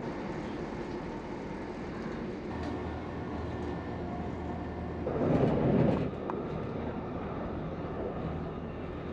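Interior running noise of a Class 168 diesel multiple unit under way: a steady rumble of wheels on rail and the underfloor diesel engines, with a louder low rumble swelling for about a second around the middle.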